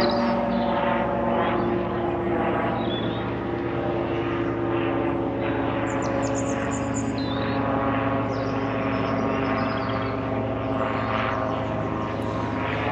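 Light propeller aircraft flying overhead, its engine and propeller giving a steady drone.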